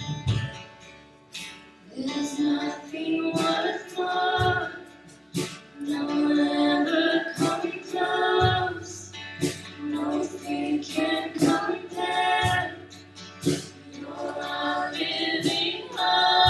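Worship band playing a song: two women singing together over a strummed acoustic guitar. A steady low note joins about halfway through.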